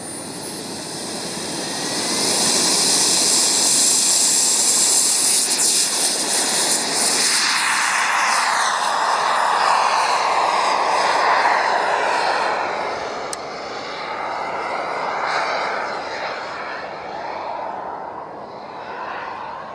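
Radio-controlled model jet flying past: a loud rushing whine that builds over the first couple of seconds, sweeps down in pitch as it passes, then fades away.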